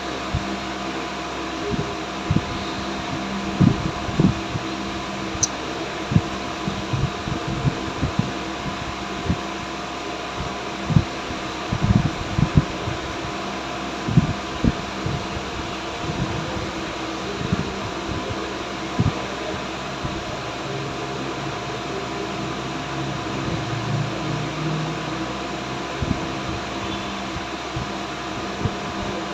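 Steady fan-like hum with scattered low knocks and clunks of parts and tools being handled while the intake and coolant reservoir are removed from the engine bay.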